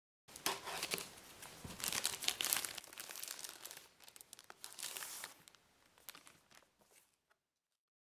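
Packaging rustling and crinkling as it is handled by hand, with many small crackles and scrapes, coming in uneven bursts and dying away about seven seconds in.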